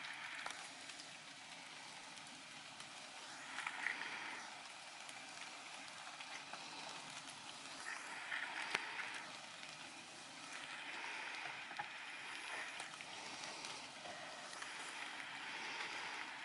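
Toyota Tacoma crawling slowly through a muddy rut, its engine and tyres heard from a distance as a steady, fairly faint noise that swells a few times as the throttle is applied, with a few light clicks and knocks.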